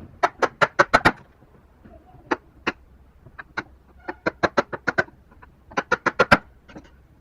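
Mallet blows on wood, sharp separate knocks in quick runs of five or six with single knocks between.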